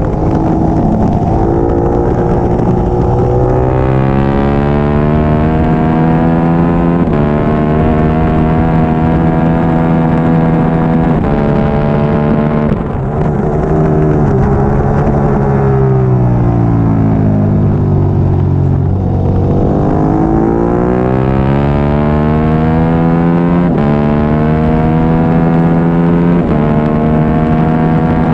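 Triumph Daytona 675R's three-cylinder engine at racing revs, climbing in pitch with a quick upshift about every three to four seconds. About halfway through the revs fall away steadily as the bike slows for a corner, then it pulls hard and shifts up through the gears again.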